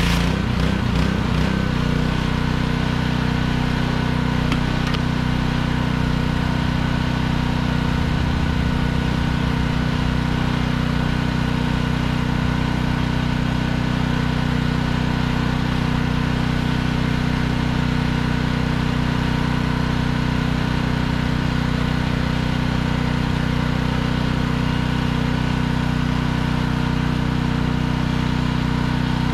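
Small gasoline engine of a pressure washer running steadily at a constant speed. A hissing rush is heard at the very start and dies away within the first second.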